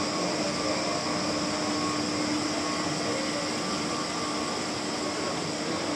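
Escalator running: a steady mechanical hum with a held low tone and an even rushing noise, heard from on the moving steps.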